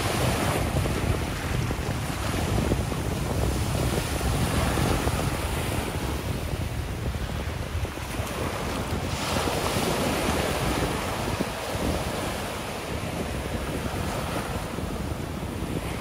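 Ocean surf breaking and washing up the beach in a steady hiss, swelling as waves rush in just after the start and again about nine seconds in. A low rumble of wind buffets the microphone underneath.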